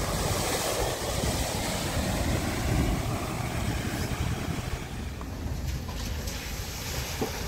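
A police pickup driving through a flooded ford, its tyres throwing up splashing water, with the engine running under a steady rushing noise.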